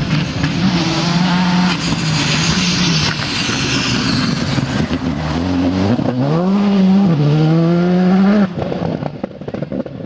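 Škoda Fabia R5 rally car's turbocharged four-cylinder engine at high revs on a gravel stage, with the hiss of gravel thrown up by the tyres. The revs drop about five seconds in, then climb again hard as the car accelerates away, and the engine sound falls off suddenly near the end.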